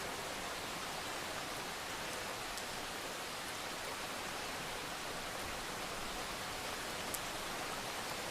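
Steady rain falling, an even hiss with a few single drops ticking, one sharper tick near the end.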